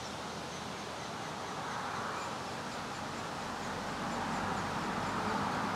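Steady low hum of a calm honey bee colony (Saskatraz bees) from the open hive while its frames are handled, mixed with an even outdoor hiss that grows slightly louder toward the end.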